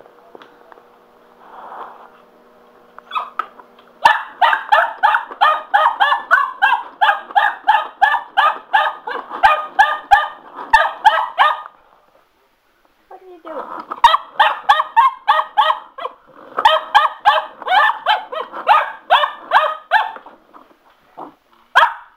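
Cocker spaniel puppy barking excitedly at a spin mop: rapid barks, about three a second, in two long runs with a short break about halfway, then a few more near the end.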